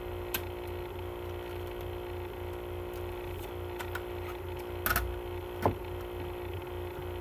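Steady low electrical hum, with a few sharp clicks and taps of a plastic CD case and its booklet being handled. The loudest click comes about five and a half seconds in.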